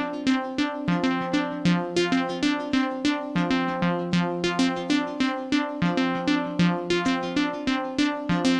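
Electronic background music: quick repeated pitched notes in a steady pulse, about four a second, over a held lower note.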